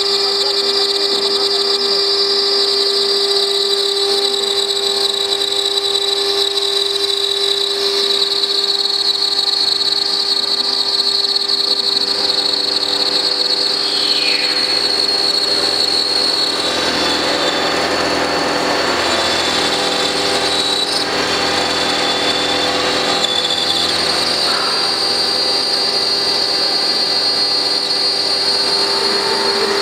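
CNC router spindle milling a stone slab with a small cutter: a steady high whine from the spindle over a grinding cut, the grinding thicker through the middle stretch.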